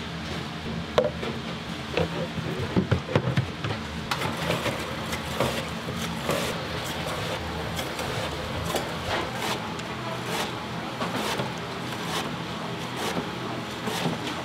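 Irregular sharp knocks and clicks of kitchen prep work, with a cluster of heavier knocks about three seconds in, over a steady low hum from kitchen machinery.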